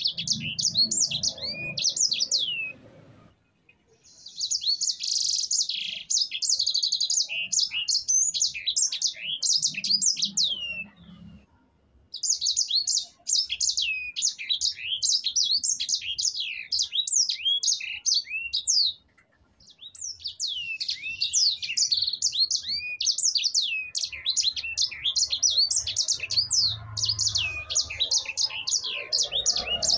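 A sanger finch in full song: long, fast, rolling phrases of high chirping notes, four phrases broken by short pauses.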